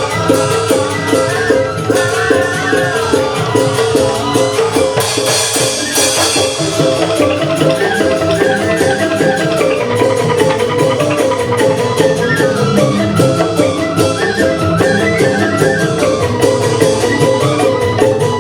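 Balinese joged bumbung gamelan playing: bamboo tube xylophones (grantang) in fast, dense interlocking patterns over a steady beat.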